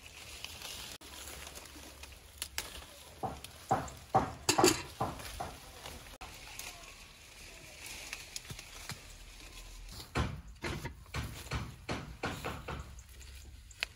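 Quince tree branches and leaves rustling as the fruit is picked by hand, with two clusters of sharp knocks and snaps, one a few seconds in and a longer run near the end.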